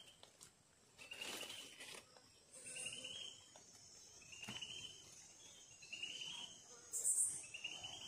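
Dry leaves rustling and wooden sticks scraping as hands set the stakes and crossbar of a stick snare, loudest about seven seconds in. Behind it an insect, cricket-like, gives about five short pulsed chirps.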